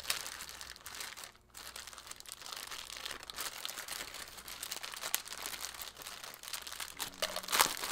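Plastic bubble wrap, taped with blue tape, being crinkled and pulled apart by hand: irregular crackling, with a brief lull about a second and a half in and a louder crackle near the end.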